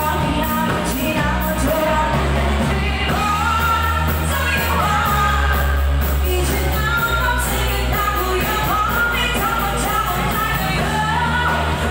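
Live pop band playing with a singer on vocals over drums, bass, electric guitar and keyboard, the cymbals keeping a steady beat.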